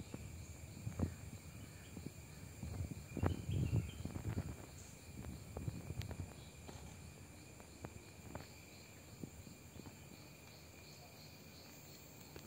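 Steady high chirring of insects, several thin tones holding level throughout. Scattered low bumps and rustles rise over it, loudest a few seconds in, with one sharp click about six seconds in.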